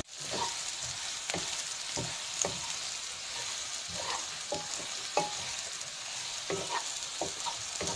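Sliced onions sizzling in hot oil in a nonstick pan while being stirred with a wooden spatula. The steady sizzle is broken by short, irregular scrapes and taps of the spatula against the pan.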